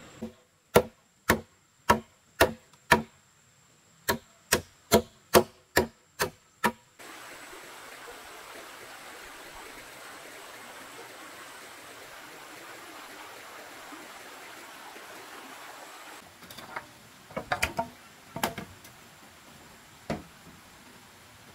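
A machete chopping into green bamboo culms, sharp strikes about two a second for the first seven seconds. Then a steady rushing of a stream, and near the end a few knocks and clatters of bamboo poles being handled.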